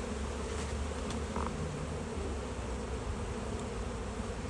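Honey bees buzzing steadily in a mass around an opened hive.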